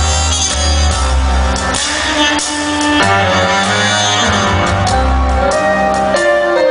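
Live pop music played loud through an arena sound system, heard from within the audience: held chords over changing bass notes, with no break.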